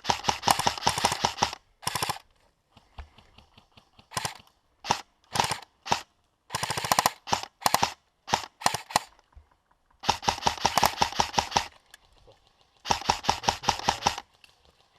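Airsoft guns firing in rapid automatic bursts, the longest about two seconds, with shorter strings and single shots in between.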